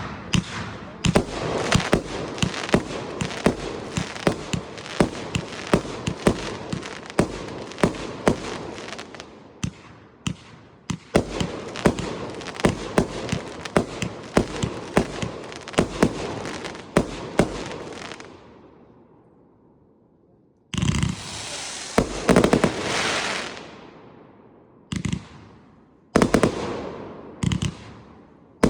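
A 109-shot Gamera consumer firework cake firing: a rapid run of sharp shots over a constant crackle for about eighteen seconds. After a pause of about two seconds come several shorter volleys of shots and crackle.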